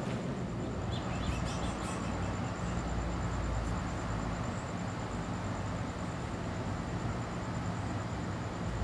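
Ducati 749's L-twin engine idling steadily.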